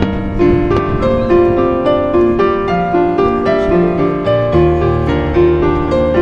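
Instrumental background music: a piano-like keyboard melody moving note by note, with a low sustained bass coming in about halfway through.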